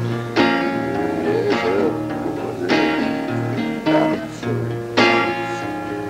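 Acoustic guitar strummed in slow full chords, three strokes a little over two seconds apart, each left to ring out.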